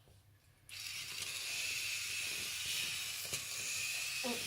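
Motor and plastic gears of a walking K'NEX K'Nexosaurus Rex toy whirring steadily, switching on abruptly just under a second in.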